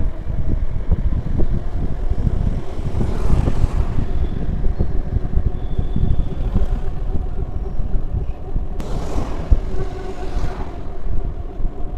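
Wind buffeting the microphone on a moving electric scooter, a gusty low rumble with a faint steady hum underneath. About nine seconds in a brief wider rush passes, like oncoming traffic going by.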